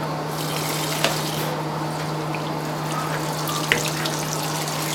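GE top-loading washing machine filling: water pours from the fill inlet into the tub in a steady rush. Two brief knocks about a second in and near the end as towels are loaded.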